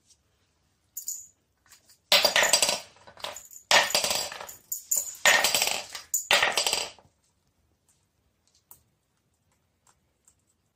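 A small plastic cup clattering and scraping on a wooden floor as a white-bellied caique handles it with its beak, in about four bursts over several seconds before stopping.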